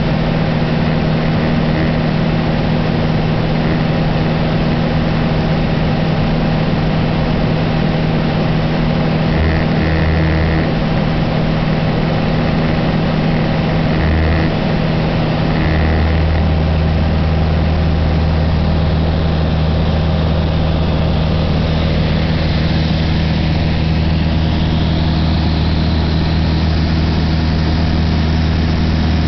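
Light aircraft's engine and propeller droning steadily, heard from inside the cabin, with a lower hum joining in about halfway through.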